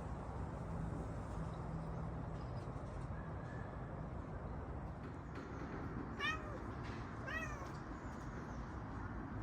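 Domestic cat giving two short meows about a second apart, each rising and falling in pitch.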